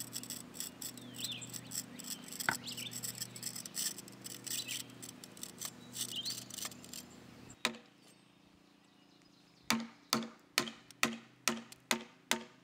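Birds chirping over a steady insect hum, with light scratching. After a pause, a chisel is struck into the end grain of a timber post: sharp strikes, about two a second, the loudest sounds here.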